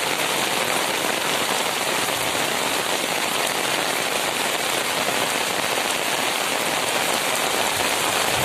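Heavy rain falling steadily, an even hiss with dense drops pattering on the umbrella overhead.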